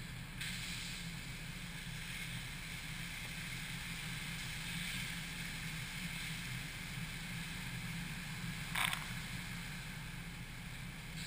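High-pressure water jets of a touchless car wash spraying over a car, a steady hiss over a low hum, with a brief louder burst about nine seconds in.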